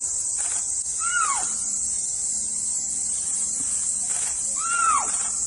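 Snow leopard calling twice, each call a short high-pitched cry that rises and then falls, the two about three and a half seconds apart. Under the calls runs a steady high-pitched hiss of insects.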